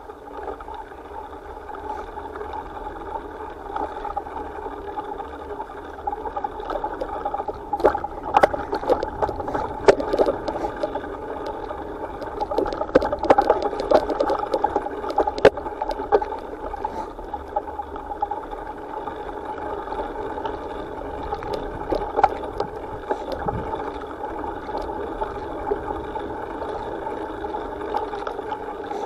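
Bicycle rolling along a rough dirt trail: a steady rushing noise, with many sharp rattles and clicks from bumps that come thickest about a third to halfway through.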